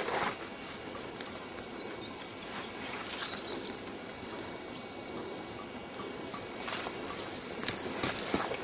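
Footsteps and rustling in dry undergrowth and leaf litter, with scattered crackles of twigs. Small birds chirp in short high trills, most clearly about three seconds in and again near the end.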